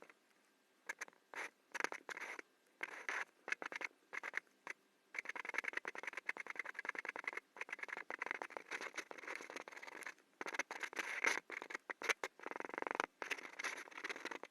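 Pen nib scratching across sketchbook paper as it draws: a few short separate strokes, then about five seconds in a fast, near-continuous scribble of hatching strokes with only brief pauses.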